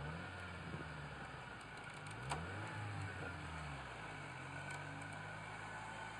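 An off-road SUV's engine running and revving repeatedly, its pitch rising and falling, while a stuck Range Rover is being pulled out on a tow strap. A single sharp click sounds about two seconds in.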